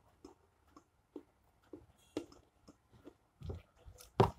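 Eating sounds: a metal spoon clicking and knocking against a bowl, along with chewing. These come as a scatter of small ticks that grow louder near the end.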